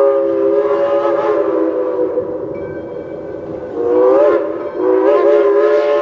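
Crosby three-chime steam whistle blowing a long chord. It eases off about two seconds in, swells back with a brief rise in pitch about four seconds in, breaks off for an instant, then sounds full again.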